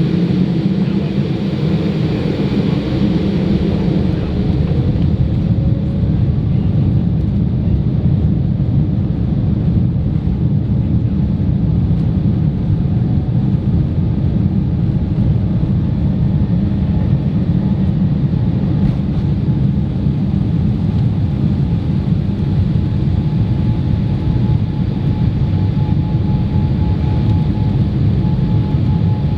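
Boeing 787-8 jet engines and airflow heard from inside the passenger cabin as a loud, steady deep rumble during the take-off run and climb. A faint steady tone joins in about two-thirds of the way through.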